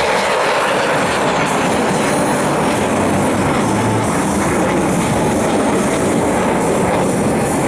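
Loud, steady jet engine noise from Thunderbirds F-16 fighter jets in flight.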